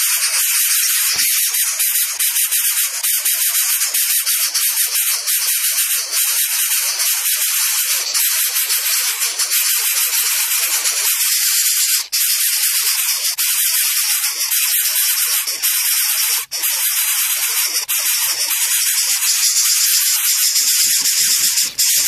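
Greater coucal nestlings hissing continuously and loudly, a harsh snake-like hiss, with a couple of brief breaks in the second half.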